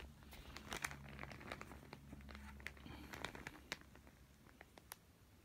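Faint handling noise: a Jordan Hydro 11 slide sandal being picked up and turned in the hand, giving light crinkling and scattered soft clicks over a faint low hum.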